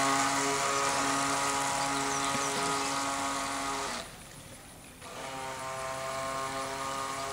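Battery-powered electric motor of a toy remote-controlled speedboat running with a steady whine. Near the middle it cuts out for about a second, then runs again.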